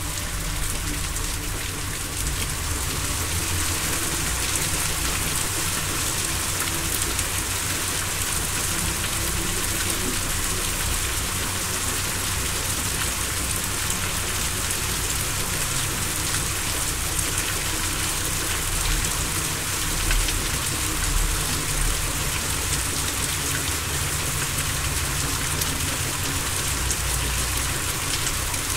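Steady rain-like hiss over a low, steady drone: an ambient relaxation soundscape.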